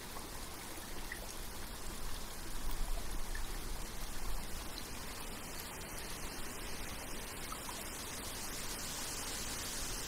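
Shallow rocky stream running: a steady rush and trickle of water over stones.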